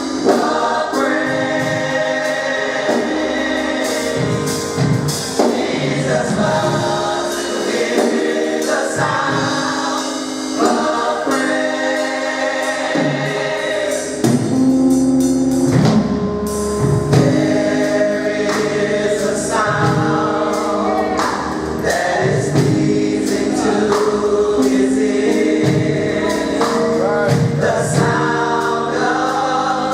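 Mass gospel choir singing with band accompaniment, sustained chords in several voice parts over a steady beat.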